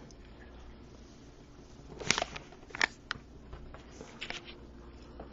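Packaging and trading cards being handled: sharp clicks and crinkles, bunched about two to three seconds in, then a few lighter taps.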